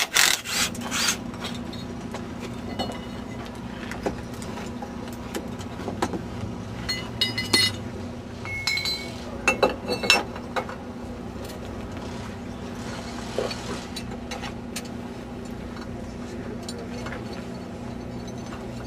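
A wrench and metal parts clinking and scraping as bolts are worked on an off-road buggy, with a few ringing metallic clinks about seven to ten seconds in, over a steady low hum.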